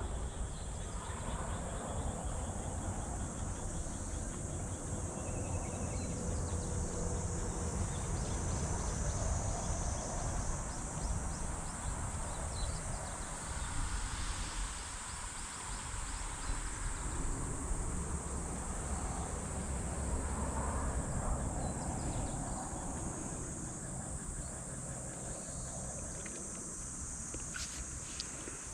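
A steady chorus of insects chirping, with a low rumble underneath.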